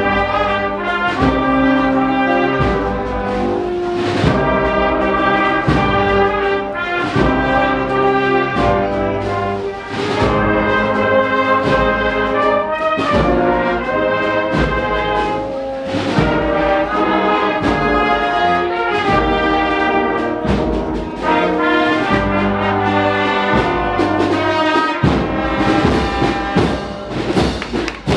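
Agrupación musical, a cofradía marching band of cornets, trumpets and trombones with drums, playing a slow processional march: held brass notes over a regular drum beat.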